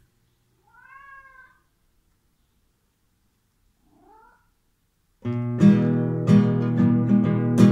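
A cat meows twice, one longer call followed by a shorter rising one. About five seconds in, an acoustic guitar starts being strummed loudly in chords.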